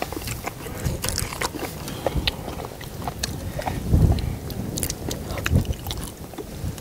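People eating: close-miked chewing and mouth noises, with many short sharp clicks of chopsticks against bowls and the metal pan; a louder burst of low noise comes about four seconds in.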